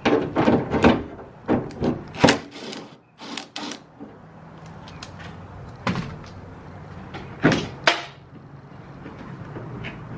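Clicks, knocks and rattles of a truck door's handle and lock parts being worked on by hand, a quick cluster in the first few seconds and a few more knocks later.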